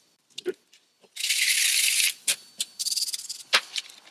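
Small plastic and rubber controller parts handled by hand: about a second in comes a short shaking rattle, followed by scattered sharp clicks and a quick run of ticks, the loudest click near the end.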